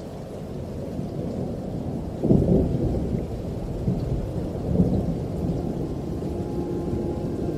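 Deep rushing rumble with no clear pitch, swelling louder twice, about two and five seconds in.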